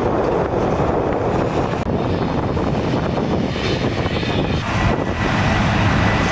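Heavy earthmoving machinery's diesel engines running in a steady, loud drone, with a brief dropout about two seconds in.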